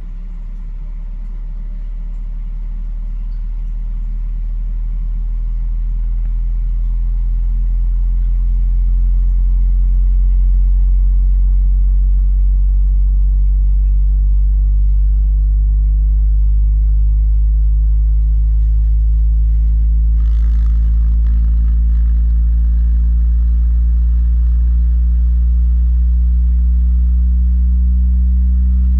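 Fenton HF5W home theatre speakers playing a very low bass test tone with a buzzy row of overtones above it. It grows louder over the first ten seconds, then holds steady. A short burst of hissy noise comes about twenty seconds in.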